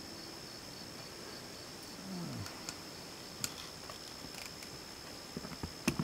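Insects chirping in a steady, rapid high pulse. A few faint clicks come from hand tools, likely the crimp tool being lined up on the connector pin, and a brief low falling hum sounds about two seconds in.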